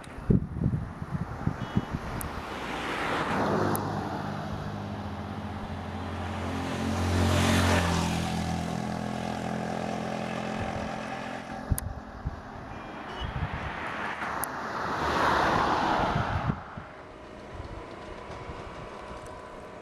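Road vehicles passing one after another: three pass-bys, each swelling and fading. The second, about seven to eight seconds in, is the loudest and carries a low engine drone. Wind buffets the microphone at the very start.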